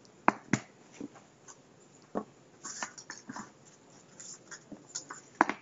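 A few scattered sharp clicks and taps over faint room noise, the loudest two close together in the first second and another pair near the end.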